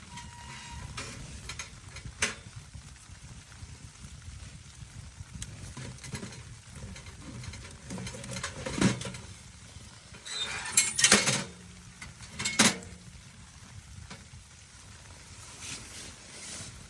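A few sharp knocks and clatters, the loudest cluster about eleven seconds in, over a low steady rumble.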